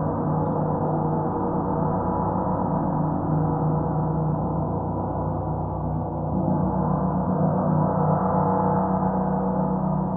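Gongs ringing in a sustained wash of many overlapping tones, swelling again about six seconds in, with faint rain patter behind.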